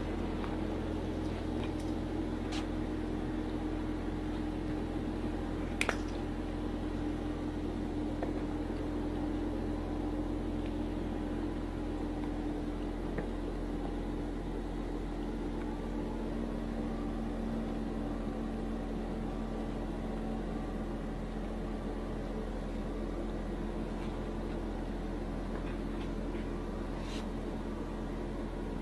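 Steady low machine hum, with a sharp click about six seconds in and a few fainter ticks.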